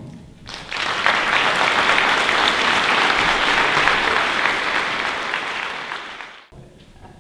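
Audience applauding, a dense, steady clapping that builds up about half a second in and cuts off suddenly near the end.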